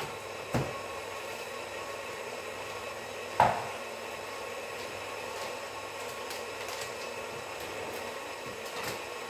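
Small kitchen robot running steadily as it mixes fritter batter on its own, with two sharp knocks, the louder one about three and a half seconds in.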